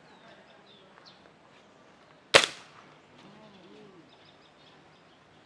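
A single shot from a Precihole NX100 air rifle firing a .177 pellet: one sharp crack about two and a half seconds in, dying away quickly. Birds chirp faintly in the background.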